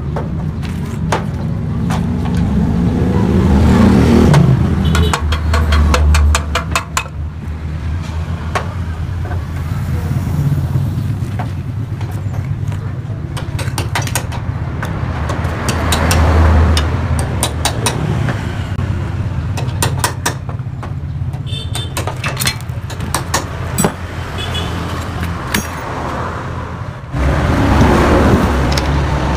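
Yamaha RX-King's two-stroke single-cylinder engine running through its hollowed-out exhaust, idling and revved up three times, each rise swelling and falling back. Sharp clicks are scattered throughout.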